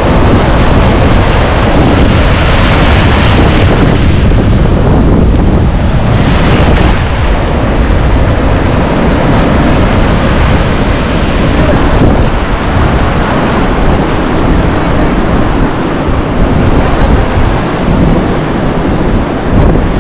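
Sea surf breaking and washing up a sandy shore, with wind buffeting the microphone in a heavy low rumble.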